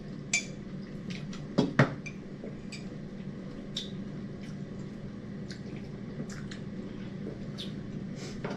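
Small, scattered wet clicks and taps of people eating with their hands: fingers tearing fried chicken over rice, mouths chewing, cups handled, with two louder knocks just under two seconds in. A steady low hum runs underneath.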